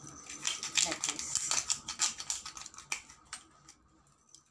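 Hand-twisted spice grinder grinding black pepper over raw chicken: a fast, gritty run of small clicks that trails off about three and a half seconds in.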